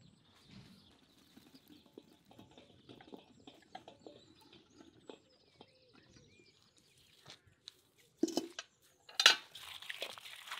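Cooking handling sounds of utensils and cookware: a run of small clicks and rustles, then two sharp knocks about a second apart near the end, the second the loudest, followed by a steady hiss.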